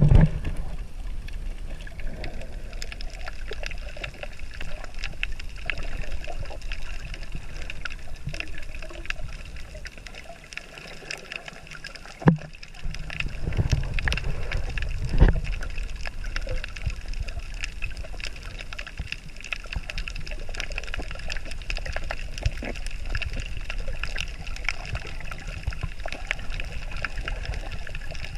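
Underwater sound picked up by a camera in its waterproof housing: a steady muffled rumble of moving water with many faint crackling clicks. Two louder knocks come about twelve seconds in and again about three seconds later.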